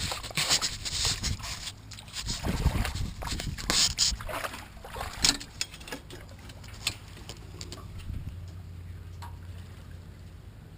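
Small waves lapping and sloshing against a boat's hull in irregular splashes, dying down after about six seconds to a faint steady rumble.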